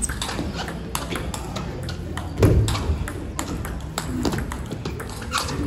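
Table tennis rally: a celluloid-type ball clicking sharply off bats and the table in a quick back-and-forth, with a louder thud about two and a half seconds in.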